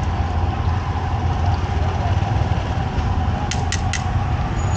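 A motor running steadily with a low hum, and three short clicks near the end.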